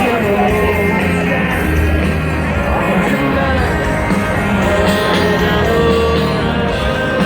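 Live rock band performing in a stadium, with a male lead vocalist singing over drums, bass and guitars through the PA.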